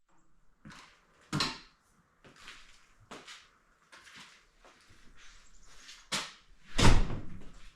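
A string of irregular knocks, scuffs and rustles, like things being moved and handled, with the loudest knocks about a second and a half in and near the end.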